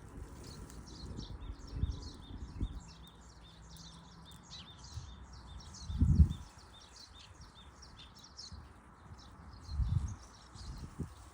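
Outdoor ambience with many short, high chirps throughout, and a few low thumps; the loudest thump comes about six seconds in and another near ten seconds.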